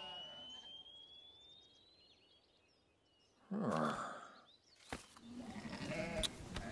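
Cartoon sound effect of a thin whistling tone that rises slowly in pitch and fades away, marking a sheep flung off into the sky. It is followed by a short silence and a sudden breathy rush about three and a half seconds in, then a faint outdoor background with small bird chirps.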